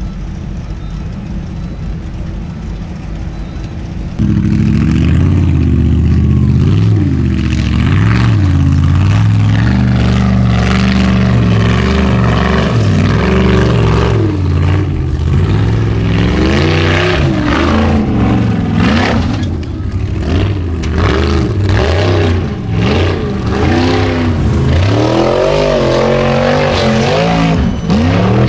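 Formula Offroad buggy engine idling, then about four seconds in bursting into hard revving that runs on loud, its pitch rising and falling over and over as the buggy climbs a steep dirt hill.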